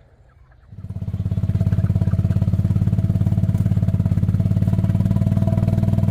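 Small gasoline engine of a golf cart starting up less than a second in and then running steadily with a fast, even putter.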